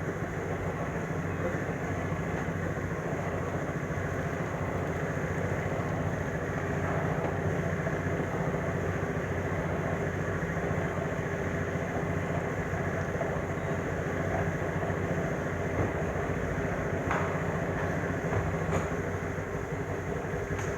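A motor or engine running steadily at an even pitch, with a fast regular pulse.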